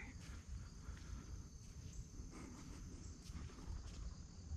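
Faint, steady high-pitched insect drone over a low rumble, with a few soft clicks.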